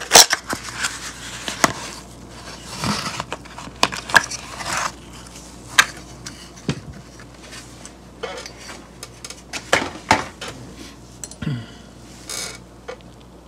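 A cardboard tool box being opened by hand and a chrome steel ratchet slid out of it: cardboard rustling and scraping, broken by sharp clicks and taps as the box and tool are handled.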